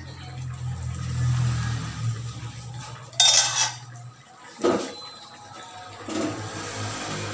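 A metal ladle stirring in a wide pan of simmering fish stew in coconut milk, then a loud clatter about three seconds in and a sharp knock a second and a half later, with a softer clatter near the end.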